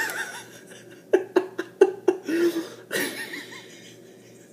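A man laughing: a run of short chuckles about a second in, then a breathier laugh, fading near the end.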